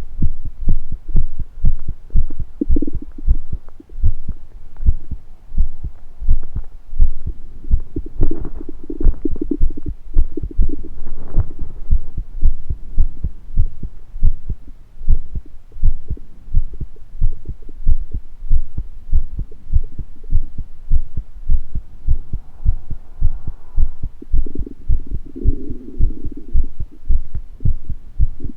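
Human heartbeat thumping steadily throughout, with short low gurgles of stomach rumbling breaking in a few times, longest around a third of the way in and again near the end.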